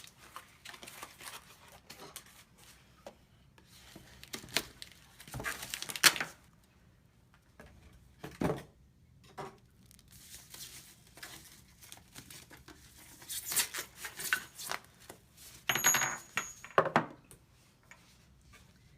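Packing materials being handled and pulled apart while an espresso machine is unboxed: irregular rustling and tearing, with scattered knocks and clicks. It is loudest in bursts about five seconds in and again near the end.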